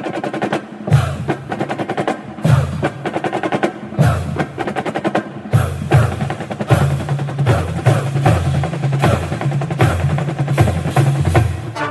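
Soundtrack music driven by drums: quick runs of snare hits over a pulsing bass line.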